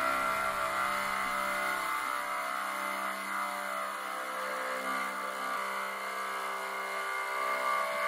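Background music: one long held chord of many steady tones that slowly fades away.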